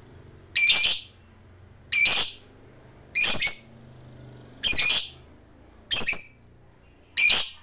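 A masked lovebird giving six short, sharp, high calls, evenly spaced a little over a second apart.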